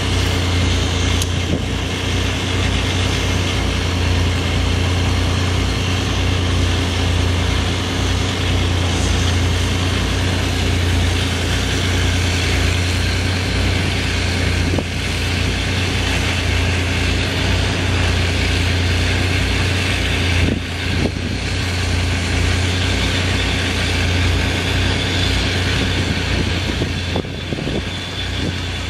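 A steady low engine drone with a fast throb underneath, like a motor idling.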